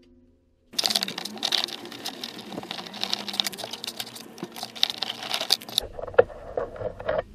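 Ratchet wrench clicking rapidly for about five seconds as a 10 mm bolt is backed out, then a few slower, separate clicks near the end.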